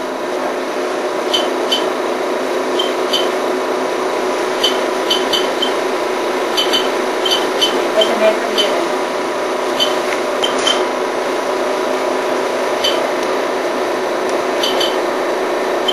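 Steady machine hum with a constant drone, broken by irregular sharp clicks and ticks.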